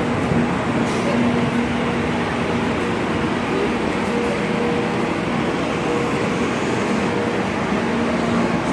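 Steady mechanical drone with a faint low hum, and a higher hum that comes and goes.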